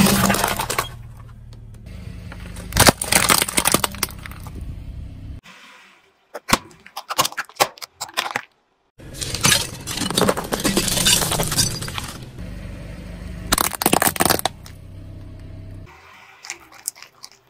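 A car tyre rolling over plastic toys and plastic bottles and crushing them: loud crunching, cracking and snapping in a few separate bouts, with a run of sharp clicks in the middle and quieter crackling near the end.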